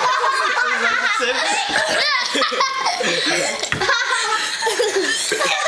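Hearty, unbroken laughter, with high-pitched child's giggles among it.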